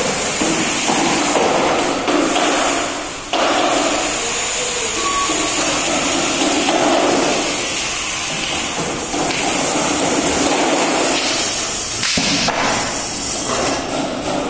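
Loud, continuous din of construction work echoing through a large, bare concrete floor under fit-out. It dips briefly about three seconds in and cuts back in abruptly.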